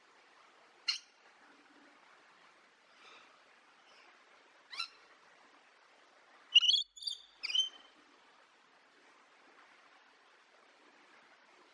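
Parrot calling: short, sharp calls, single ones about a second in and near five seconds, then three louder calls in quick succession just past the middle, over a faint hiss.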